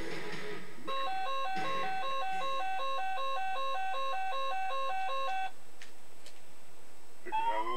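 Electronic children's toy playing a simple beeping tune of short, evenly repeated notes, about three a second, which stops about five and a half seconds in. Near the end a warbling, siren-like sliding tone starts.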